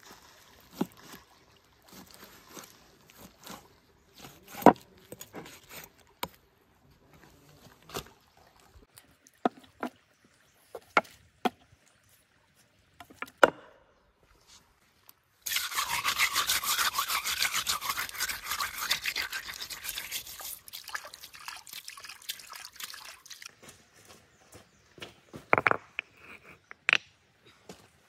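Meat cleaver working a raw leg of mutton on a wooden cutting board: scattered knocks and taps of the blade on the board, then a long stretch of rapid scraping strokes that fades out, and a few sharp knocks near the end.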